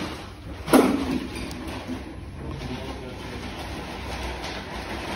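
Electrolux W4250S washing machine draining after the final rinse, its drum tumbling the wet load with a steady rushing, churning noise. There is one loud thump just under a second in.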